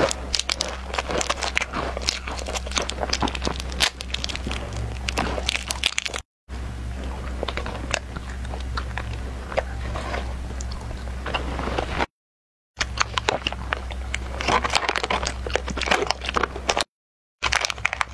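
Close-miked biting and chewing of crunchy snacks: a dense run of crisp crunches and crackles, broken by three brief dropouts to silence. Plastic snack wrapper crinkling near the end.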